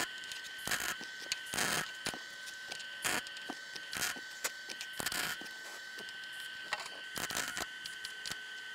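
Small Lincoln Handy MIG welder arc-welding rusty car-body sheet steel: irregular crackling with sharp pops, which stop about a second before the end. The wet, rusty metal is hard to weld to and makes the weld pop. A steady high whine runs underneath.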